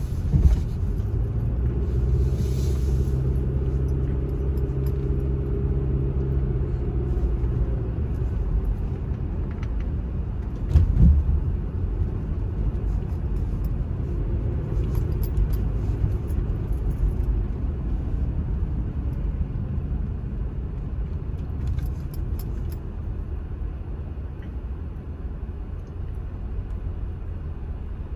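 Car engine and tyre rumble heard from inside the cabin while driving, with a steady engine hum over the first several seconds. A single loud thump comes about a third of the way through.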